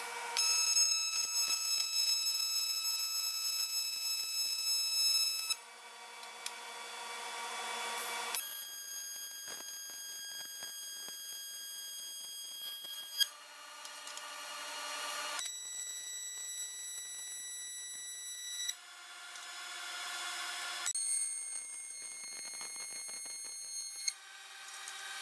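AC TIG welding arc on aluminium, buzzing steadily with a high-pitched hum over a hiss. The buzz breaks off and comes back at a different pitch about every two to five seconds.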